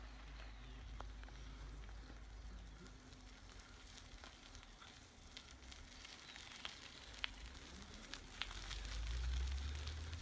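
Faint crackle and crunch of bicycle tyres rolling over a gravel dirt road as cyclists ride past, with scattered small clicks over a low steady rumble. It grows louder near the end as a rider passes close.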